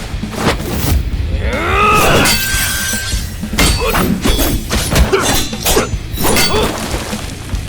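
Animated fight sound effects: a rapid run of sharp hits, clashes and shattering impacts, with a short gliding sound about two seconds in.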